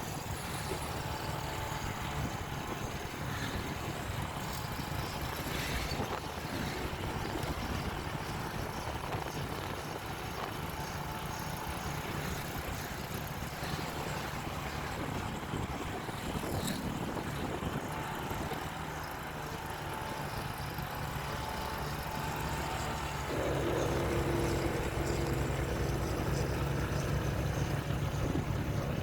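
Steady rumble of vehicle engines and road noise. About three-quarters of the way through it gets louder, with a steady engine hum holding to the end.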